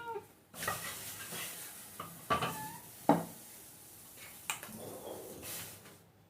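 Onions frying in a pan of hot oil, a steady sizzling hiss, with a metal utensil knocking and scraping against the pan several times.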